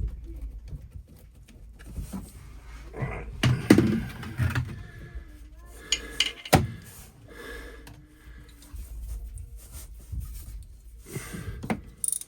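Knocks, clicks and scrapes of hands and tools fitting a hose clamp onto an engine hose in a cramped engine room, over a steady low hum. The loudest knocks come in a cluster about four seconds in, with one sharp knock a little later.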